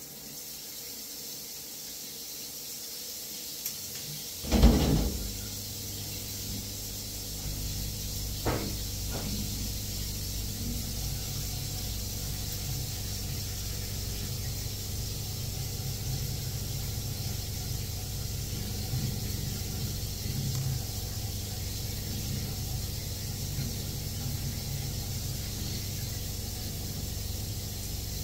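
Shower running, water spraying in a steady hiss, with a low hum under it. A loud knock comes about four and a half seconds in as the glass shower screen door is shut, and a lighter knock a few seconds later.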